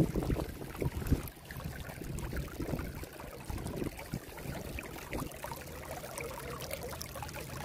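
Storm water welling up out of a full dry well's two ports under a shallow pool of river stones, bubbling and trickling steadily. The surrounding soil is already saturated, so the well is overflowing rather than draining.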